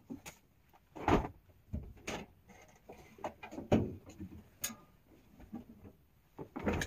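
Laundry being lifted out of a top-loading washing machine by hand: cloth rustling, with several sharp knocks against the machine, the loudest about a second in and just before four seconds.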